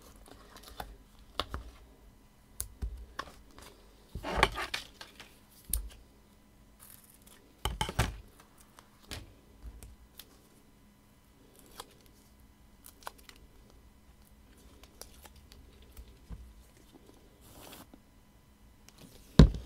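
Scissors snipping foam pads into small pieces, with paper and card rustling and light taps as the pieces are handled. A sharp click comes just before the end.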